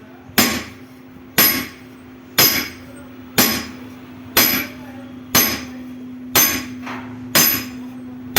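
Hammer blows on metal, evenly about once a second, each with a bright ring, as a cylinder liner is driven into a four-cylinder engine block. A steady hum runs underneath.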